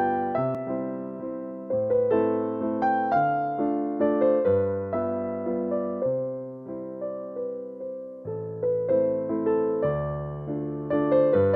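Background music: a gentle piano tune, each note struck and then fading.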